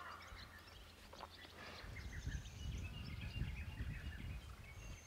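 Small birds chirping and twittering in the background, with an uneven low rumble that starts about two seconds in.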